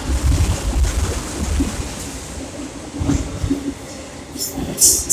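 Freight train of autorack cars rolling past: a steady rumble and rattle of wheels on the rails, heaviest in the first second and a half and again about three seconds in, with short bursts of hiss near the end.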